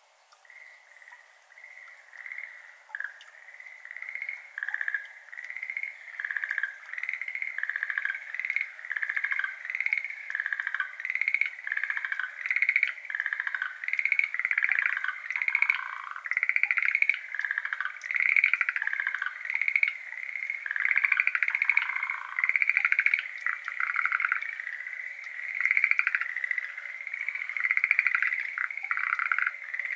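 A chorus of Schlegel's green tree frogs calling: many overlapping short, pulsed trills. It starts faint and builds over the first few seconds into a dense chorus that carries on.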